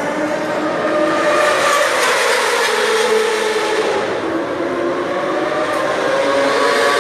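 Racing motorcycle engines on the circuit, heard at a distance: a continuous drone of several overlapping engine notes, their pitch rising and falling as the bikes accelerate and brake.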